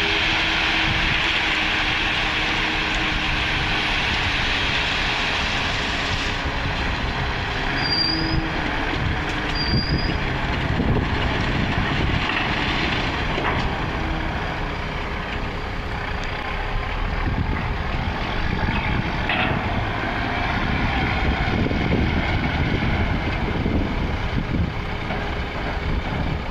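Tipper truck's diesel engine running while its raised dump body empties a load of gravel, a steady pouring hiss over the engine; in the second half the truck drives off and a lower engine rumble takes over.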